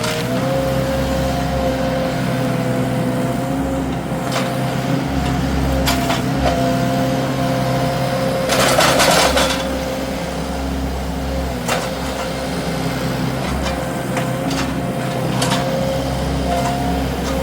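Wacker SM120 mini skid steer running steadily under work, its engine rumbling under a held whine, with a few sharp knocks. About halfway through comes a brief loud rushing hiss.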